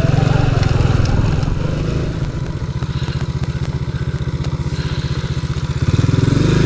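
Honda Cub's single-cylinder four-stroke engine running under way, with wind and road hiss. The engine note drops about two seconds in and comes back up near the end.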